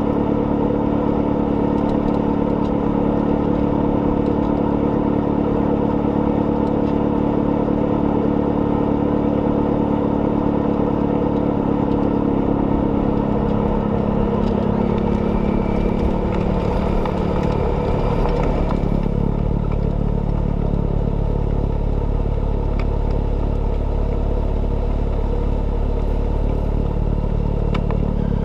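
John Deere 6110R tractor engine and snowblower running steadily together. The pitch drops from about twelve seconds in and holds lower after about nineteen seconds.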